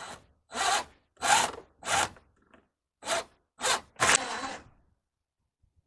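A run of seven short rasping, scraping strokes, about one every 0.6 s, with a one-second break after the fourth.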